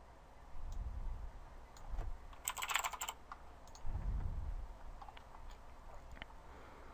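Computer keyboard being typed on: scattered single keystrokes with a quick run of keys about two and a half seconds in, along with a few low dull thumps.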